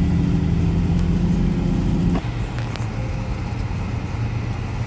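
Motor vehicle engine running steadily, its pitch dropping to a lower, steady note a little over two seconds in, as when the throttle is let off.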